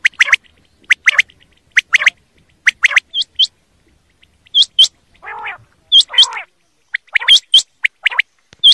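Desi quail calling: loud, short, sharp notes, mostly in quick pairs, repeated about once a second. About five and six seconds in come two longer, lower, raspy calls.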